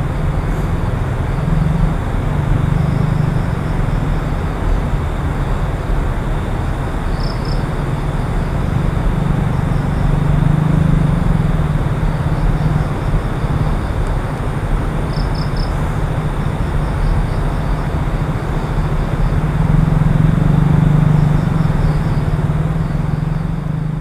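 Steady rushing outdoor night ambience with a low hum that swells and eases several times, and faint short high chirps now and then.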